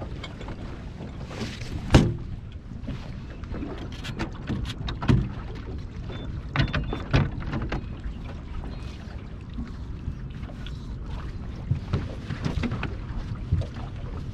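Small waves lapping against a drifting fishing boat's hull over a steady low wind rumble, with scattered sharp knocks of feet and gear on the deck, the loudest about two seconds in.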